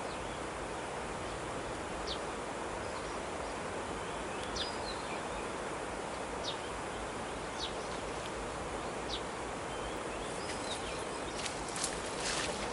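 Steady outdoor background hiss with short high bird chirps every second or two, and a few faint rustling clicks near the end.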